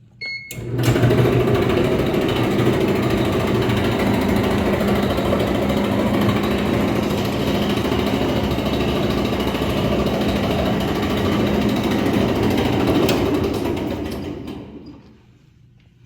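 Whirlpool clothes dryer drum running with a loud, steady grinding rumble, the sign of worn-out drum rollers. A short beep comes just before it starts, and the noise winds down near the end.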